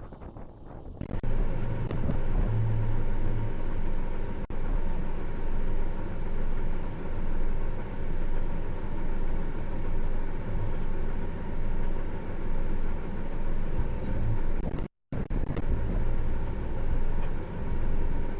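Diesel engine of harvest machinery running steadily under a steady low hum. It cuts in about a second in and breaks off for a moment about three seconds before the end.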